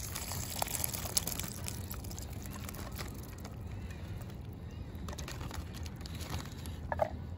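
Juice and then kernels from a can of sweet corn poured into a plastic zip-top bag of dry bait mix: liquid pouring and the bag crinkling, with scattered small clicks and taps.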